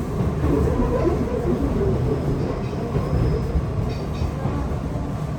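Train in motion, a steady rumble of wheels and car noise.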